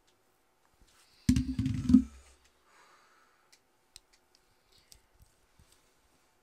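Handling noise: a loud, low, buzzing rumble lasts under a second, starting about a second in. It is followed by a few faint clicks as a foundation stick is handled.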